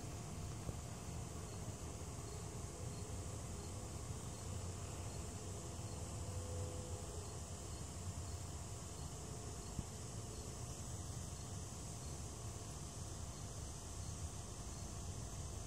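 Faint, steady high-pitched insect chorus with a soft, even chirp about twice a second, over a low outdoor rumble.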